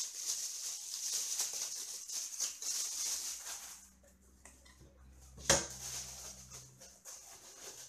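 Thin plastic packaging bag crinkling and rustling as it is pulled off a boxed car amplifier, then quieter rustling, a single sharp knock about five and a half seconds in as the unit is set down on the table, and faint paper rustling.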